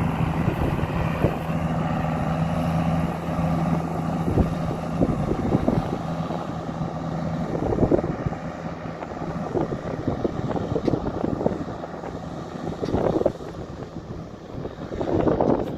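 Ford TW25 tractor's diesel engine running steadily under load while pulling a plough, with a steady hum that fades after about six seconds as it moves away, and wind on the microphone.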